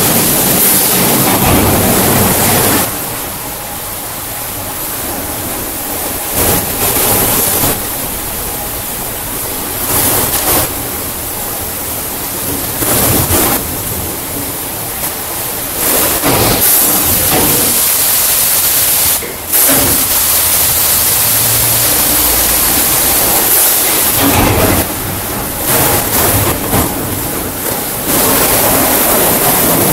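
Wesumat Soft Wash rollover car wash at work: water spraying and the rotating brushes turning against a car, a steady rushing noise that swells and drops back every few seconds.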